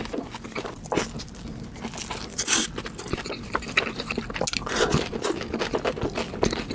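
Someone chewing and biting into a pastry, with irregular crisp crunches and wet mouth clicks.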